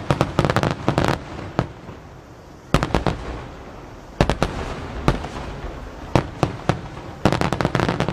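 Large starmine firework barrage: aerial shells bursting in rapid volleys of sharp booms, in clusters separated by short lulls, with a dense run at the start and another near the end.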